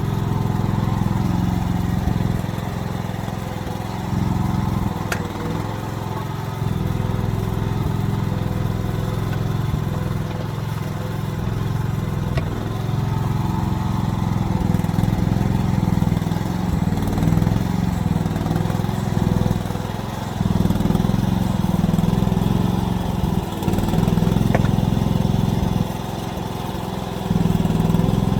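Mini excavator engine running continuously, its level stepping up and down every few seconds as the machine works.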